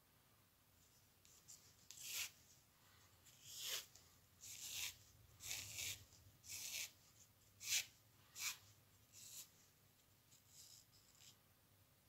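Thin cord being pulled through the tight strands of a rope knob-covering knot, as a filler cord is stitched into its gaps: a run of about eight short rubbing swishes, then a few fainter ones near the end.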